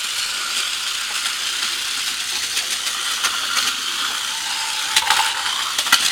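Two battery-powered Crush Gear toy battle cars running in a plastic arena: a steady high whir of their small electric motors and gearboxes, with a few sharp clacks near the end as they collide with each other and the arena wall.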